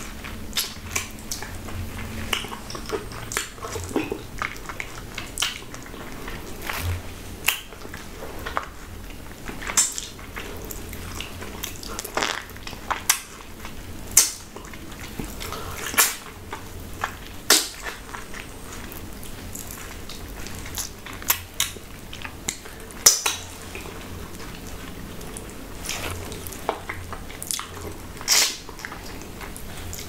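Loud, close-up wet eating sounds of a ripe Jamaican mango being bitten and sucked off its skin and seed: irregular sharp mouth smacks and juicy slurps, a few much louder than the rest.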